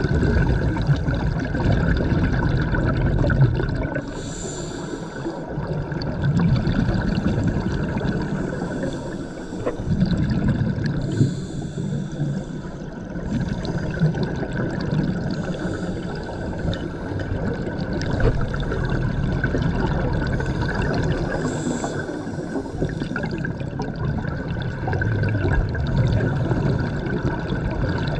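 A scuba diver breathing through a regulator underwater: exhaled bubbles hiss and gurgle in bursts that come back every three to four seconds, over a steady low rumble.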